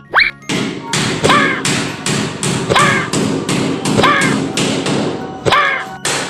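Cartoon-style sound effect: a quick rising whistle, then a rapid run of thuds about three a second, some of them with a short falling squeak.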